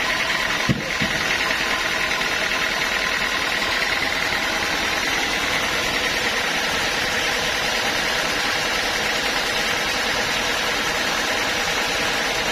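Sawmill machinery running steadily with a constant high whine, with a short knock under a second in.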